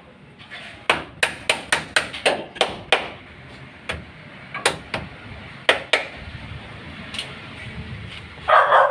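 Hammer strikes: a quick run of about eight sharp blows at roughly three a second, then a few more scattered blows. A dog barks near the end.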